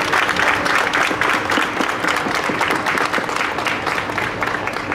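A small crowd applauding by hand, easing off slightly near the end.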